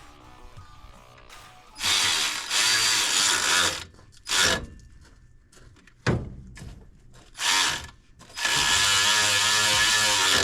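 Handheld power tool driving bolts back into an engine's water pump and pulley, running in several bursts of a second or two, with the longest near the end.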